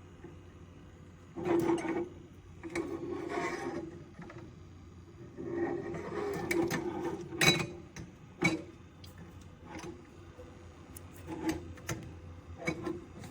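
Irregular knocks, clicks and short rattling scrapes of something being handled, over a low steady hum.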